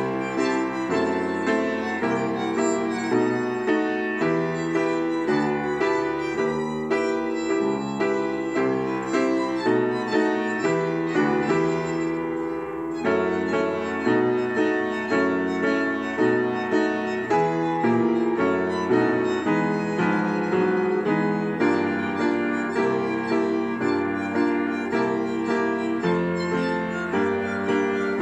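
Upright piano played with both hands: a lively tune, melody over bass notes, with a steady, even pulse.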